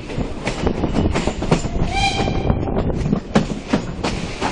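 Steam train rolling slowly, its wheels clicking and clattering over the rail joints under a steady rumble, with one short, high whistle toot about two seconds in.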